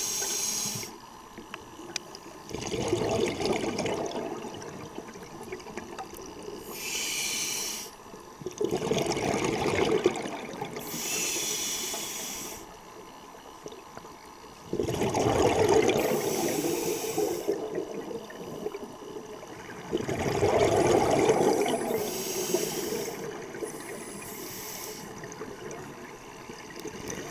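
Scuba diver breathing through a regulator: short hissing inhales alternate with longer bursts of exhaled bubbles, about four breaths in a slow, even rhythm.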